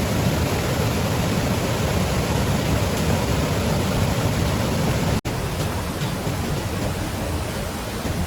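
Rushing water, a steady dense noise with no other distinct events. It cuts out for an instant about five seconds in.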